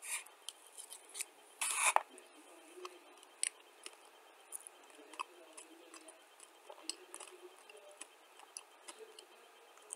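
Close-up chewing of a mouthful of dry clay powder: soft scattered crunches and mouth clicks, with one louder noisy crunch lasting under half a second, about a second and a half in.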